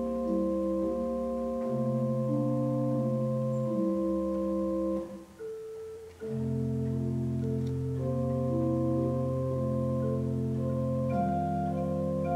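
Pipe organ playing slow, sustained chords over held bass notes. About five seconds in the chord is released and the sound drops away briefly, and about a second later the playing resumes with a deeper bass note.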